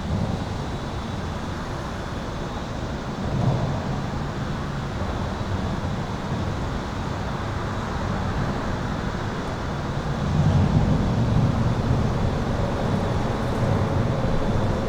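Highway traffic heard from beneath an overpass: a steady low rumble of passing vehicles that swells about three and a half seconds in and again from about ten seconds on. A faint steady electrical hum runs under it.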